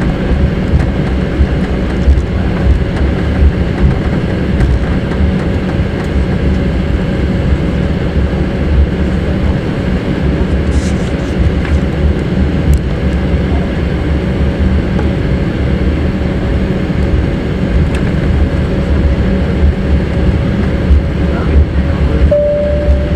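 Cabin noise inside an Embraer 190 airliner taxiing, its two GE CF34 turbofans running at taxi power over a steady low rumble from the airframe and wheels. Near the end a short two-note falling tone sounds.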